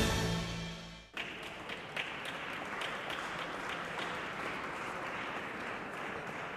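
Intro music ends on a final hit that dies away within the first second. Then steady audience applause as the competing couples come onto the dance floor.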